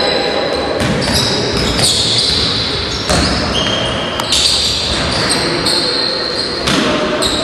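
Basketball game sounds in a gym hall: a ball bouncing on the court floor several times, and sneakers squealing on the floor in short, high-pitched squeaks.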